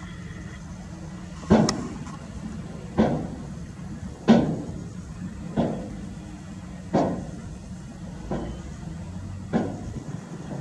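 UD Trucks dump truck's diesel engine running as it pulls away with its tipper bed partly raised, with seven loud bangs from the dump body, about one every second and a third, the first one doubled.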